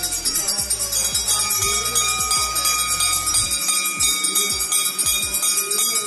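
Brass temple bell at a shrine entrance rung over and over by devotees, quick clanging strikes with a bright ringing that carries on between them.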